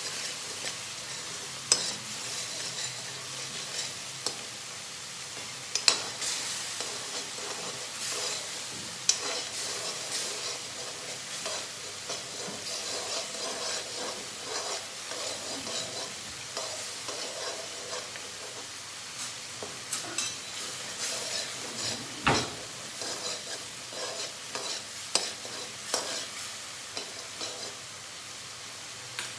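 Onion, tomato and ginger masala paste sizzling as it fries in mustard oil in a metal pan. A metal spoon stirs and scrapes it, with frequent light clicks against the pan and one sharper knock about 22 seconds in.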